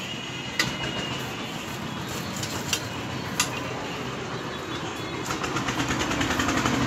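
A steady mechanical hum with a few sharp clicks; near the end it grows louder, with a fast run of ticks.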